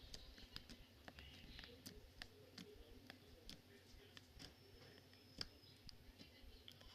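Clear 'water' slime being handled, giving faint, irregular little clicks and pops.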